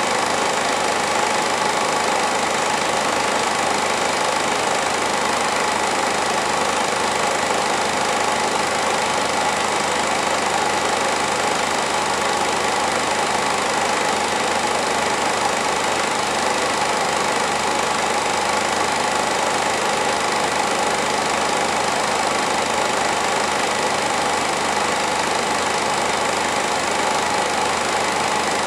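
Home-movie film projector running with a steady mechanical whir, unchanged throughout.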